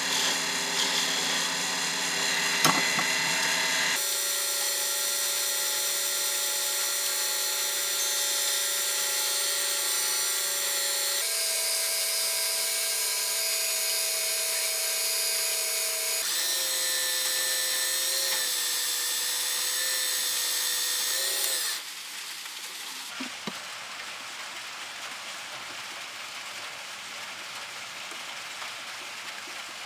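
Wood lathe running with a steady motor whine over hiss as a spinning hardwood finial is cut and sanded. The pitch of the whine changes abruptly a few times, and the sound drops to a lower level about 22 seconds in.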